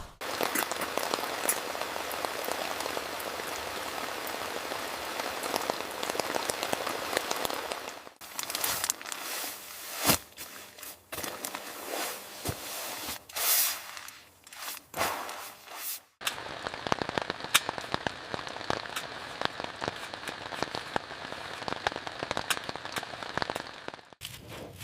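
Rain falling, a dense hiss full of small drop ticks. For a stretch in the middle it drops back, and a series of separate sharp knocks and clicks stands out over it.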